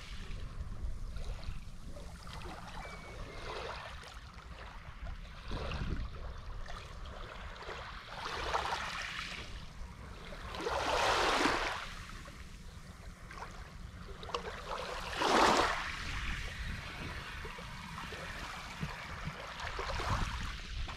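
Small waves washing up on a sand-and-pebble shoreline: several soft swells of wash that rise and fall over a second or two each, the loudest about halfway through.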